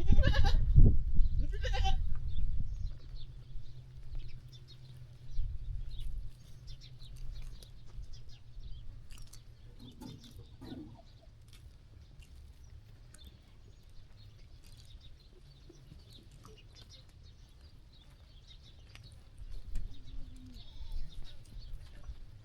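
Sheep bleating: a short call about ten seconds in and a fainter one near the end, over scattered small clicks. A low rumble with a couple of sharp knocks is the loudest thing in the first few seconds.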